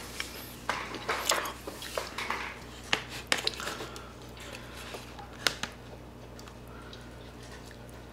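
Spoon clicking and scraping against a takeout food tray and a bowl as rice is scooped up and dropped into pho broth: a scatter of light clicks that thins out over the last couple of seconds.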